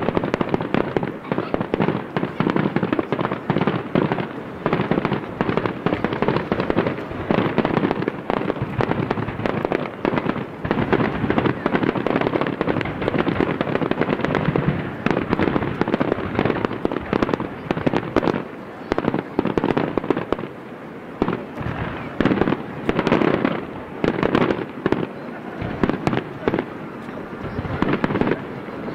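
Fireworks bursting in quick succession: a dense, continuous string of booms and sharp cracks, easing slightly for a moment about two-thirds of the way through.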